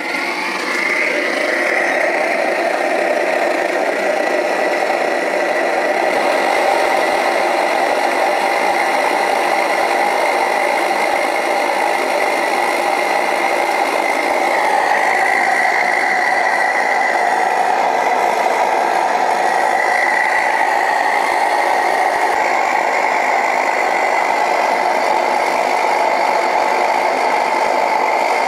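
Homemade gas burner firing into a small fireclay-lined melting furnace: a loud, steady flame roar that builds over the first second or so and then holds.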